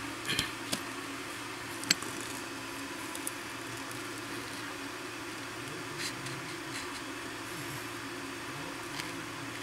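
A few light clicks and taps from hands working a RAW cigarette rolling machine while tobacco is loaded onto its rollers, over a steady low background hum. The sharpest tap comes about two seconds in.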